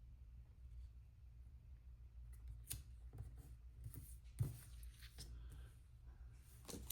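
Faint clicks and rustles of paper pieces being handled and pressed onto a planner page, with one sharper click about four and a half seconds in, over a low steady room hum.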